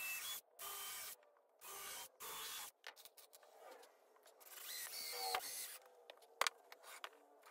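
Bosch 18V cordless drill pre-drilling screw holes through a pine 2x4: four short bursts of about half a second each in quick succession, then light clicks of screws being handled, then one longer run of the drill about five seconds in.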